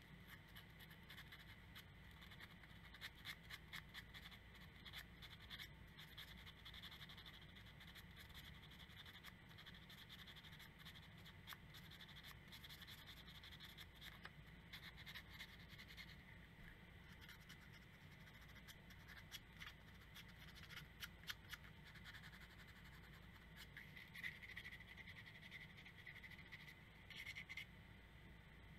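Faint scratching of folded sandpaper rubbed by hand against a small metal screw, in repeated short strokes that come and go in spells.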